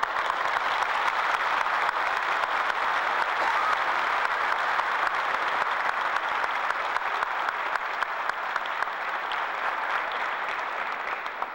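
A large congregation applauding, a dense steady clapping that tapers off near the end.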